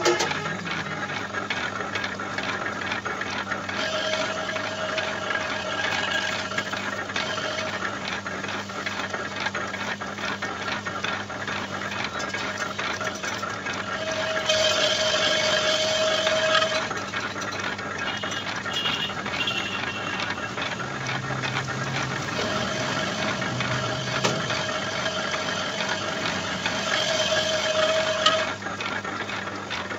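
Metal lathe running while a boring bar cuts inside the bore of a cast-iron rotavator housing held in a four-jaw chuck: a steady machine hum with a fast rattle, and a high ringing whine from the cut that comes and goes several times.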